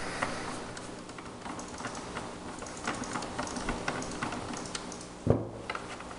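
Phillips screwdriver turning screws out of the plastic housing of a Hayward pool vacuum: a run of small irregular clicks and ticks from the screwdriver and screws, with one louder knock about five seconds in.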